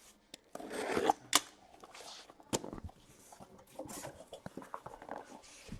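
Cardboard boxes and packaging being handled: rustling and scraping with a few sharp clicks and taps.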